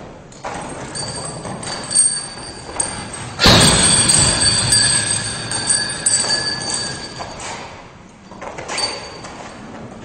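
Heavy punching bag kicked, a loud thud about three and a half seconds in, followed by a ringing metallic rattle from its hanging hardware that fades over a few seconds as the bag swings. There are a few lighter knocks before and after it.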